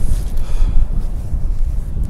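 Wind buffeting the microphone, a loud uneven low rumble, with surf washing faintly on the shingle beach.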